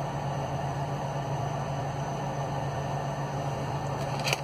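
Steady low hum and hiss of background room noise, with one brief click near the end.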